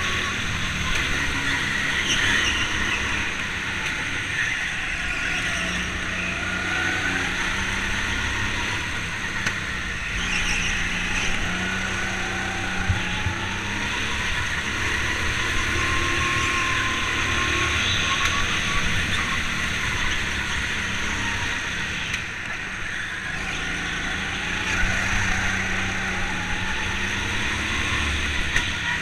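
Go-kart engine heard onboard, running continuously with its pitch rising and falling as the kart accelerates and slows through the corners.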